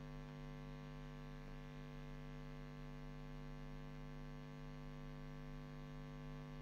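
Steady electrical mains hum: a low buzz made of several even tones at once, unchanging throughout.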